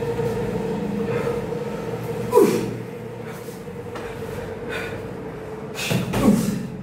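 Boxing-glove sparring: scattered glove strikes and shuffling footwork, with two louder hits, one about two and a half seconds in and one near the end, over a steady hum.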